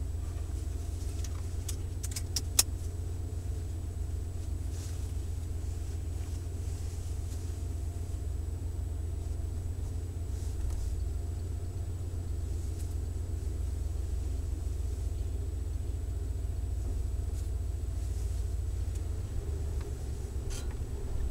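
Ford van's 351 Windsor V8 running steadily through a Flowmaster Delta Flow 50 series single-inlet, dual-outlet muffler, a low, even exhaust note heard from inside the van. A few sharp clicks about two seconds in.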